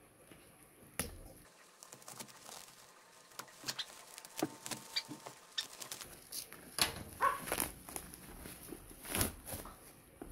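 A Hot Wheels toy car's blister pack is handled and opened: irregular clicks, plastic crinkling and card tearing. These get busier and louder about two-thirds of the way in.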